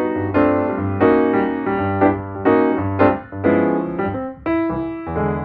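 Background piano music: keyboard chords struck every half second to a second over a sustained low bass line.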